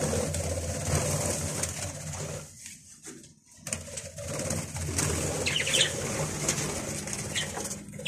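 Budgerigars chirping, a few short high calls about five and a half and seven and a half seconds in, over a steady low rumble.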